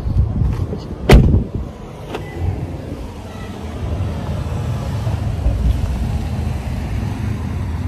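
A car door shut with one loud thump about a second in, followed by a steady low rumble.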